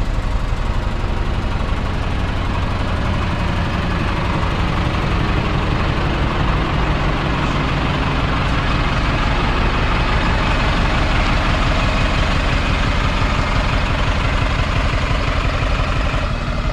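Diesel engine of a Scania Fencer F1 single-deck bus idling steadily, with a continuous low hum.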